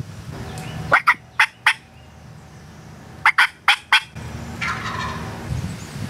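Osceola wild turkey gobbler gobbling twice, about two seconds apart, each gobble a quick rattling run of notes.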